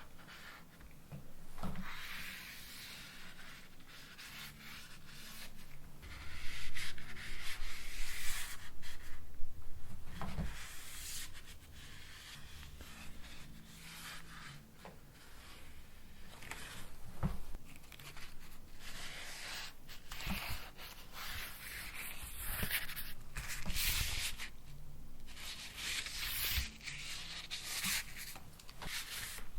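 Painting tools rubbing and scraping across a canvas in irregular strokes, with a few short knocks.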